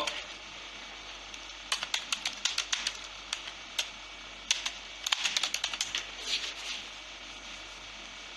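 Typing on a keyboard: two quick runs of key clicks a couple of seconds apart.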